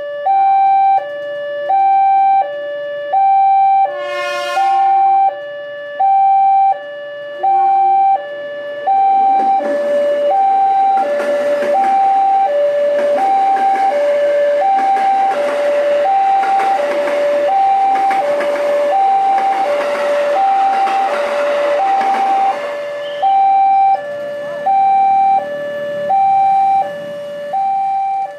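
Railway level crossing warning alarm sounding a steady two-tone ding-dong, alternating high and low notes of about 0.7 s each. A brief horn sounds about four seconds in. From about nine to twenty-three seconds, the rushing noise of a train passing at speed over the crossing runs under the alarm.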